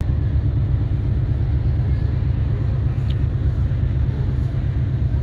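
Steady low rumble on the open deck of a car ferry: the ship's machinery running, with wind buffeting the microphone.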